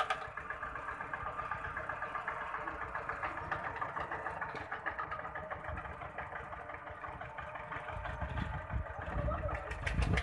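Tractor's diesel engine idling steadily, with a low rumble growing over the last couple of seconds.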